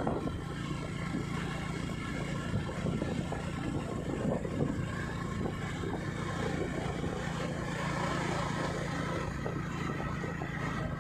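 Vehicle engine running at a steady pitch with road and wind noise while driving along a road.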